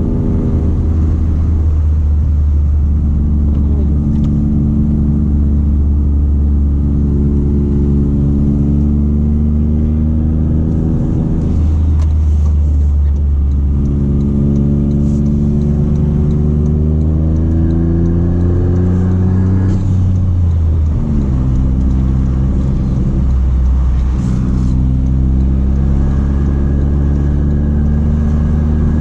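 Toyota GR Corolla's turbocharged 1.6-litre three-cylinder, breathing through an aftermarket intake and a valved exhaust with the valves open, pulling through the gears. Its pitch climbs steadily and drops several times as it shifts or eases off.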